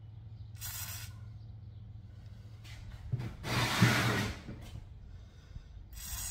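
Aerosol can spraying through its straw in two short hisses, one near the start and one near the end, flushing metal chips out of a freshly tapped hole in aluminum in place of compressed air. About halfway through there is a louder, longer rushing noise.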